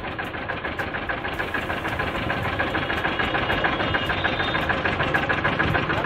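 Small engine running steadily at idle with a rapid, even knocking beat.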